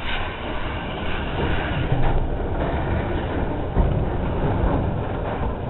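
Steam-hauled heritage train running along the line, heard from aboard a carriage: a steady rumble of wheels on track, with a heavier jolt a little under four seconds in.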